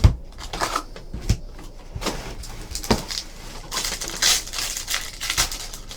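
Trading card packs being handled and torn open: wrapper crinkling and tearing in short bursts, with a sharp click at the start and a few knocks on the table.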